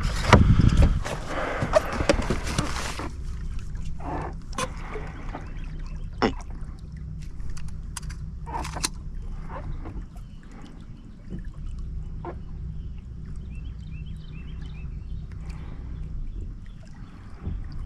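Sounds aboard a bass boat: a loud rushing noise for about the first three seconds, then a steady low hum with scattered clicks and knocks.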